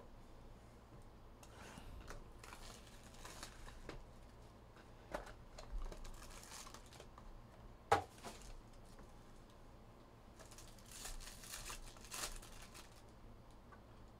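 Foil trading-card pack wrappers crinkling and tearing in three stretches as packs are opened, with a small click about five seconds in and a sharp tap, the loudest sound, about eight seconds in.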